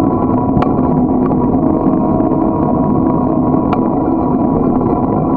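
Steady rumbling ride noise from a camera mounted on a moving bicycle: wind over the microphone and tyres on asphalt, with a continuous hum under it. Two sharp ticks, about half a second in and again near four seconds, like the mount knocking over bumps.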